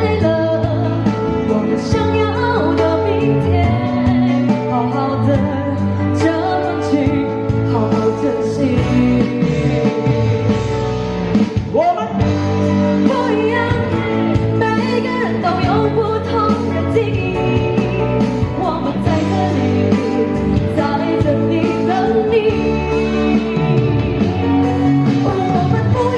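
A singer performing a pop song over loud musical accompaniment with guitar, the music and voice continuing without a break.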